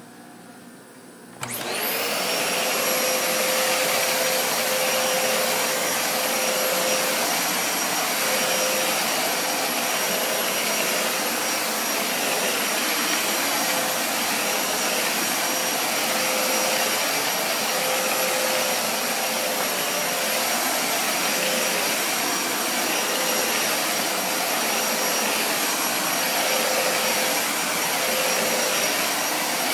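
Dyson vacuum cleaner switched on about a second and a half in, its motor spinning up at once and then running steadily on its carpet setting. A high whine sits over the rush of suction.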